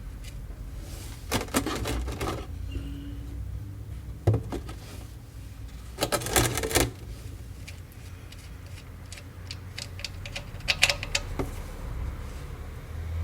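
Metal tools and parts being handled under a car during an oil change, in four short bursts of rapid clicking and clattering over a steady low hum.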